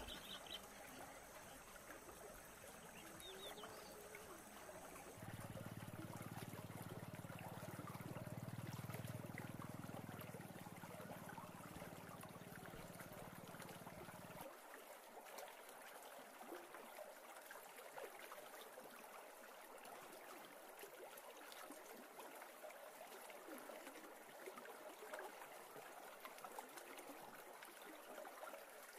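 Faint, steady trickling and rushing of a shallow river flowing over a gravelly bed. A low rumble sits under it for several seconds in the middle and cuts off suddenly.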